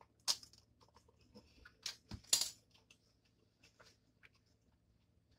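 A few faint eating noises as a mouthful of ramen noodles is sucked in off chopsticks: a sharp smack just after the start and a short noisy burst about two seconds in, with near quiet between.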